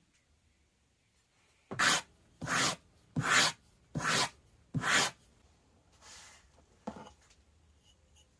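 A hand tool is drawn along a bison-leather strap in five quick scraping strokes, about one every 0.7 seconds. Two fainter strokes follow.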